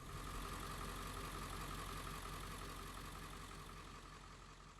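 Engine idling steadily, with a steady high tone over the running, fading out near the end.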